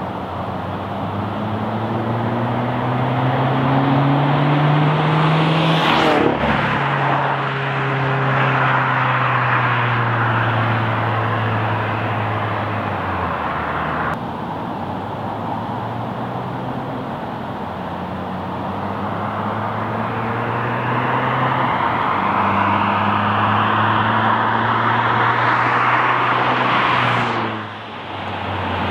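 2018 Subaru WRX turbocharged flat-four with a 3-inch axle-back muffler delete driving past twice, its exhaust note rising as it comes on and dropping in pitch as it goes by. The passes come about six seconds in and again near the end.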